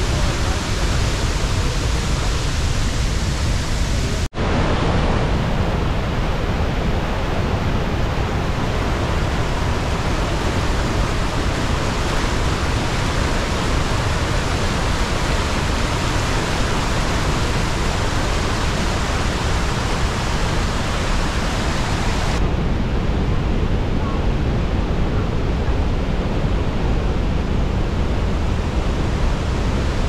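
Steady, loud rushing roar of a large waterfall, heavy muddy water pouring over a rock lip. It breaks off for an instant about four seconds in, and sounds duller from about two-thirds of the way through.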